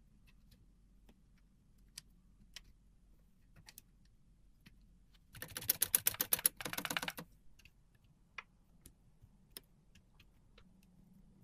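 Restored manual typewriter being typed on: a few scattered single clicks, then a fast run of keystrokes for about two seconds midway.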